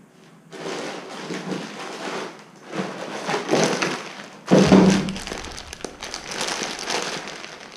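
Handling noise: irregular rustling and crinkling with a few knocks, the loudest a thump about four and a half seconds in.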